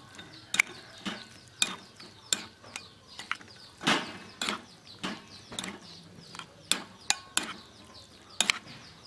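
A metal spoon mixing sliced pork and mushrooms in marinade in a glass bowl, clinking against the glass in irregular sharp knocks, roughly two a second.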